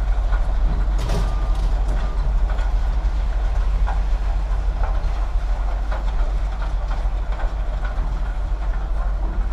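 A steady low rumble with scattered metal clanks and knocks as scrap steel is unloaded and dropped; the sharpest clank comes about a second in.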